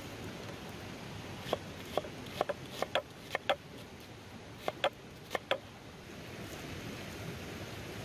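Knife chopping through a red onion onto a wooden cutting board: about a dozen sharp taps in two quick runs, over a steady hiss.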